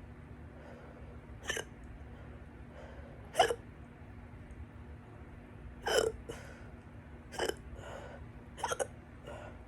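A person's loud hiccups, part of a stubborn, persistent bout: five sharp hiccups irregularly spaced about every one and a half to two and a half seconds. The last three are each followed by a softer catch.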